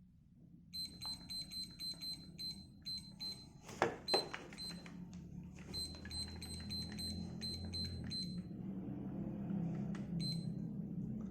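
Digoo DG-AN0211 weather station alarm clock beeping at each button press while its alarm time is stepped up: two runs of quick high beeps, about three or four a second, a single beep near the end, and a couple of louder clicks between the runs.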